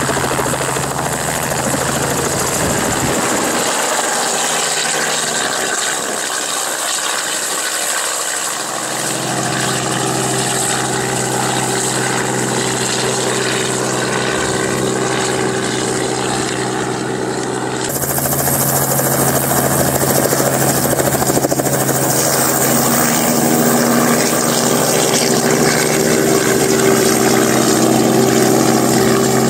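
Robinson R44 Raven II helicopter running, its six-cylinder Lycoming piston engine and rotor giving steady humming tones over blade noise. The sound changes abruptly several times and is louder in the last third.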